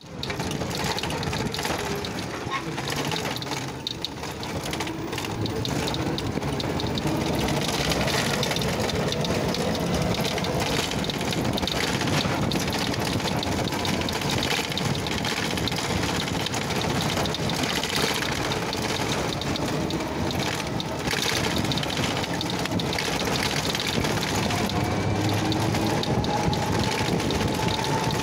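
Steady rushing noise of a vehicle in motion, with wind on the microphone and a faint wavering motor tone under it; it dips briefly about four seconds in.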